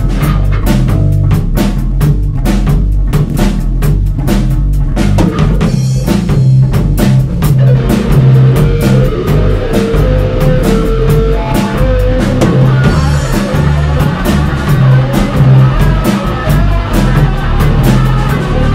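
Blues-rock boogie played live by an electric guitar, bass guitar and drum kit: an instrumental passage, the guitar leading over a steady driving drum beat, with a few long held guitar notes near the middle.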